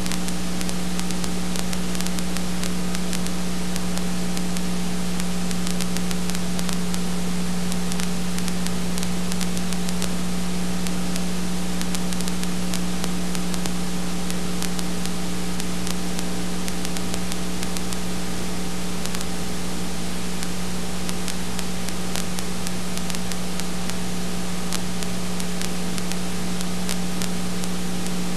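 Steady hiss with a constant low hum and faint crackles: the background noise of a silent home-movie transfer, with no sound from the scene itself.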